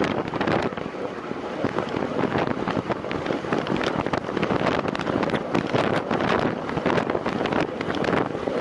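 Loud wind buffeting the microphone of a camera carried on a time-trial bicycle at race speed: a steady rush with constant gusty flutter.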